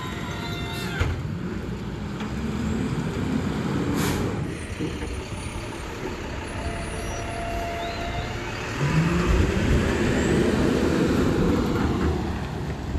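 Rear-loader garbage truck's diesel engine pulling forward and speeding up, with a short air-brake hiss about four seconds in. A little before the end the engine revs up again and stays loud.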